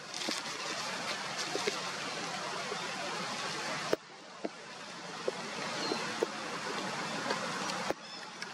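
Steady outdoor background hiss with a few faint clicks. The noise drops abruptly and builds back about four seconds in and again near the end, where the footage is cut.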